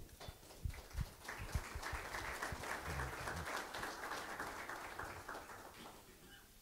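Small audience applauding. The clapping builds about a second in, holds, and fades away near the end.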